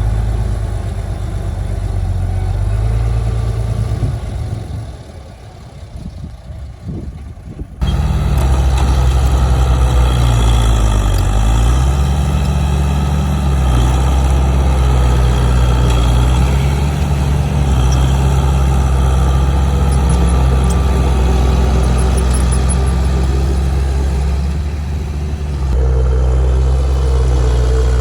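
Heavy diesel engine of earth-moving machinery running, its pitch shifting now and then under varying load. The sound fades about four seconds in, then comes back suddenly and loud just before eight seconds and runs steadily after that.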